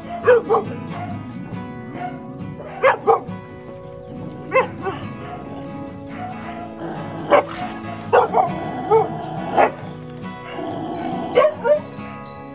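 Dogs barking and yelping in short, sharp bursts, often two in quick succession, about a dozen in all, over steady background music.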